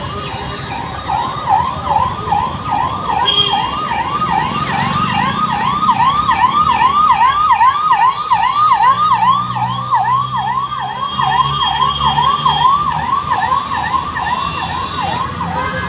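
Ambulance siren yelping: a fast rising-and-falling wail repeating about three times a second, loudest around the middle as the ambulance passes, with a low vehicle engine hum beneath for a few seconds.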